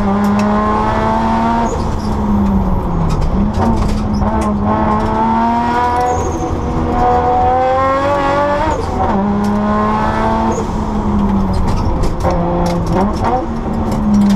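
Rally car engine heard from inside the cabin, driven hard along a stage. The revs climb and drop again several times as the car shifts and slows for corners, over a steady low hum and road noise.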